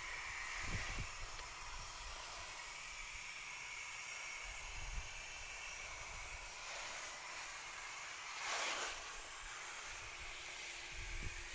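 Water spraying from a garden hose onto leafy shrubs, a steady hiss with a louder surge of spray about eight and a half seconds in.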